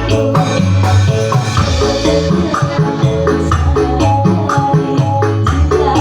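Instrumental passage of a song: a steady bass line and melody over a regular beat with light shaker-like percussion, with no singing.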